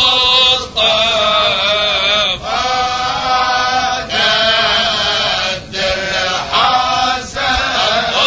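Male voices chanting a tahlila, an Arabic Islamic devotional chant, unaccompanied. The melody is drawn out and wavering, sung in phrases of one to two seconds with short breaks between them.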